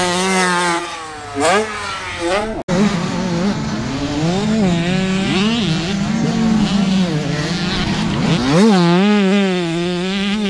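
Motocross dirt bike engine revving hard, its pitch climbing and dropping again and again with throttle and gear changes. The sound cuts out for an instant about two and a half seconds in.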